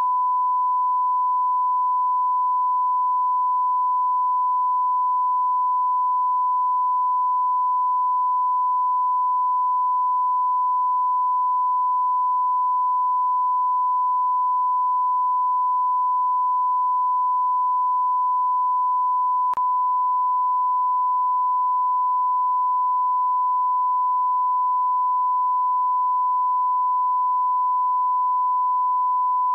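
Steady 1 kHz sine-wave test tone: a single pure, unbroken pitch at constant level, the standard broadcast line-up tone sent with a television test card.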